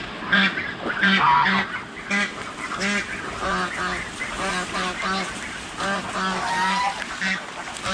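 Domestic geese calling: short, repeated honks, about two a second, from several birds overlapping.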